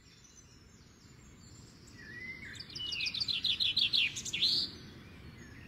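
A songbird singing outdoors over a faint background hiss that swells up from silence. About two and a half seconds in, it gives a fast trill of a dozen or so repeated high notes, lasting about two seconds.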